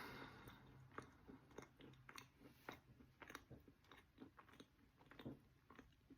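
Faint chewing of soaked eating chalk: a run of small, sharp crunches at an uneven pace, about two a second.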